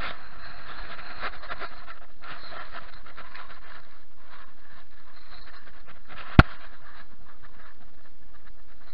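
Rustling and scraping handling noise as hands and a jacket sleeve work close to a chest-mounted camera, pulling fishing line up through an ice hole, with one sharp click about six and a half seconds in.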